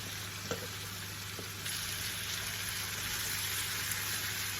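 Beef mince and vegetables sizzling as they fry in a pan, with a couple of light clicks; the sizzle gets louder about a second and a half in.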